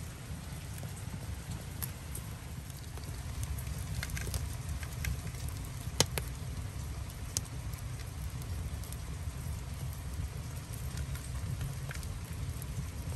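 Split firewood burning in the firebox of a traditional Korean clay stove, crackling with scattered small pops over a steady low rumble, with one sharp snap about halfway through.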